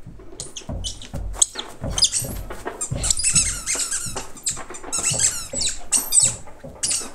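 Children squealing and shrieking in short high-pitched bursts while dodging and running, densest in the middle.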